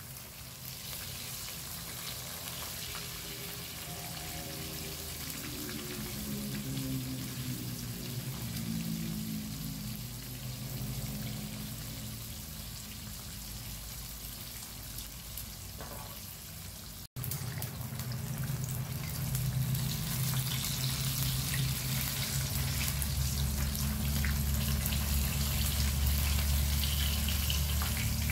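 Sultan fish steaks frying in hot oil in a wok, a steady sizzle with fine crackling. A steady low hum sits underneath and grows louder after a brief cut in the sound partway through.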